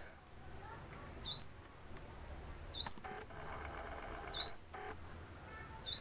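Sunbird calling: a short, sharp, upward-sweeping note repeated about every one and a half seconds, four times.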